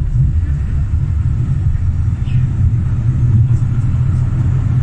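Steady low rumble of outdoor street noise, with no distinct event standing out.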